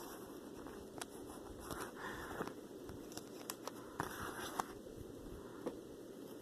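Faint rustling and scattered light clicks of small plastic Lego pieces being handled and searched through.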